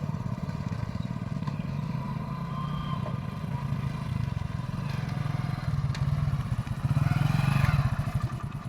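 Diesel engine of a Cat 323D3 hydraulic excavator running with a steady low throb, getting louder for a couple of seconds near the end as it takes load, then easing off.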